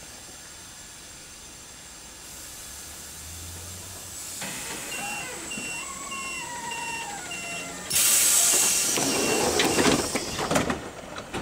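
PolRegio EN57 electric multiple unit standing before departure: a steady hiss of air, then about four seconds in a door-warning beeper starts, about two beeps a second, alongside a falling whine. About eight seconds in comes a sudden loud burst of compressed-air hiss and a few knocks as the pneumatic doors close.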